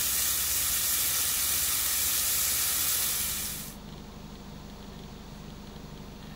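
Pork belly and kimchi sizzling on a hot grill pan, a dense steady sizzle that cuts off abruptly about three and a half seconds in, leaving a much quieter background with a faint steady low hum.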